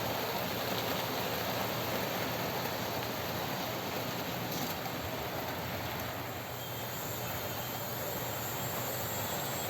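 OO gauge model trains running on the layout, giving a steady rolling noise of wheels on track.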